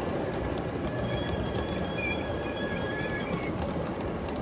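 G-scale model freight train of coal hopper cars rolling along the track: a steady rumble of wheels on rail. A thin high squeal joins about a second in and fades out near the end.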